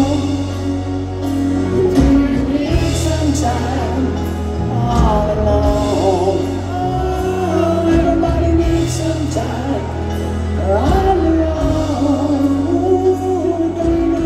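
Live rock band playing a slow piano ballad, with a man singing the lead vocal over grand piano and long held low notes, heard through the concert sound system from among the audience.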